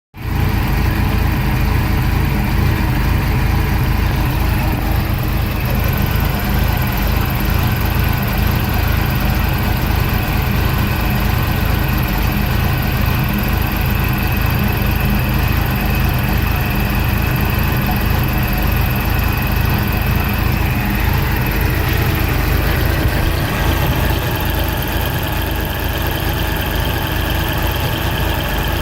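An engine idling steadily, its tone shifting slightly about twenty-two seconds in.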